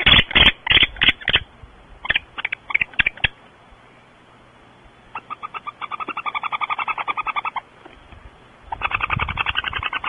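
Barn owl in a nest box: a series of sharp knocks and scrapes in the first second or so as it shifts against the box. About five seconds in, it gives a rapid twittering call, a fast even run of chirps at about eight a second lasting some two and a half seconds. A shorter run of twittering comes near the end.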